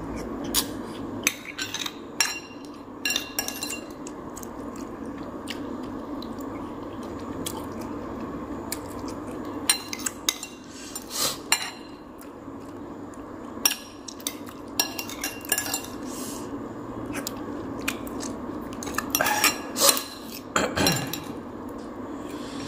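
Metal utensils clinking and scraping against a pot in scattered light knocks during a meal of curry noodles and prawns, over a steady low background noise.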